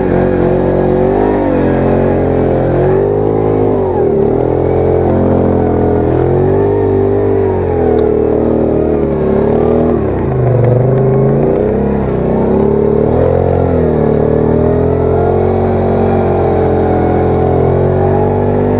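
Can-Am ATV engine revving up and falling back over and over, its pitch rising and dropping every second or two, as the quad labours through soft, rutted sand.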